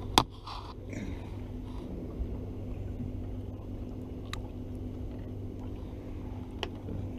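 A small red drum being landed and unhooked by hand: a sharp knock just after the start and two faint ticks later, over a steady low hum.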